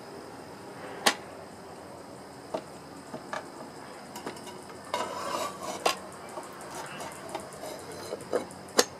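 Metal clicks and clinks of a 10-inch carbide-tooth saw blade being handled past a miter saw's blade guard and fitted onto the arbor. A few sharp clicks, the loudest about a second in and just before the end, with a short scraping rattle around the middle.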